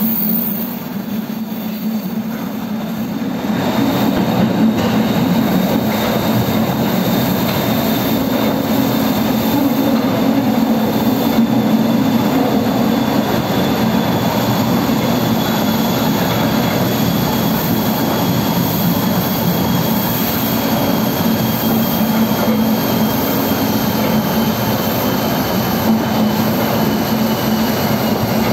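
Astra IVA metro train running through a tunnel, heard from inside the car: a steady, loud rolling rumble of wheels on rail. Over it a faint high whine slowly falls in pitch, and the noise grows louder a few seconds in.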